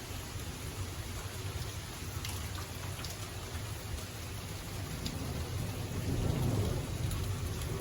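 Rain falling steadily during a thunderstorm, with a low rumble of thunder rolling after a lightning flash and swelling in the second half.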